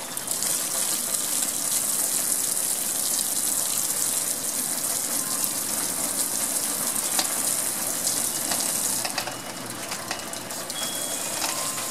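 Garden hose spray nozzle spraying water onto a projection screen: a steady hiss of spray that stops about nine seconds in, leaving a fainter hiss of water.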